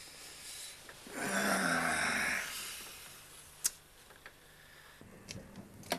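A man's long, breathy voiced exhale lasting about a second and a half, then a sharp click and a few small knocks near the end.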